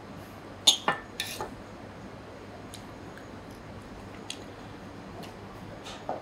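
Knife and fork clinking against a plate while cutting meat: four sharp clicks in quick succession between about a second and a half in, then a few faint ticks over a low room hum.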